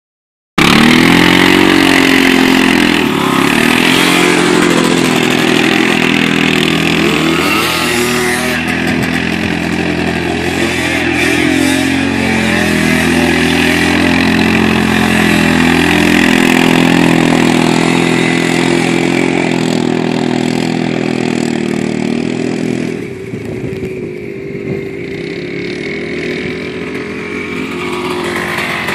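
Bennche Bighorn 700 UTV engine revving up and down as it spins doughnuts, its pitch rising and falling again and again. The sound drops in level about 23 seconds in as the machine moves farther off.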